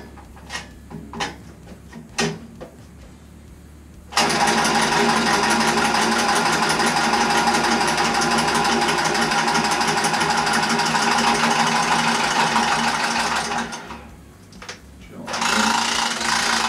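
A few knocks and clicks of work on the boiler piping, then about four seconds in an electric power tool's motor starts and runs steadily for about nine seconds before winding down. It starts again near the end.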